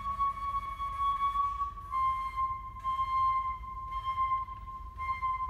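Solo flute holding a long high note, then stepping down slightly to another long held note about two seconds in.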